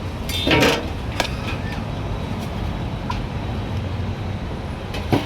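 Steady rumble of road traffic, with a brief louder sound about half a second in and a few sharp clicks.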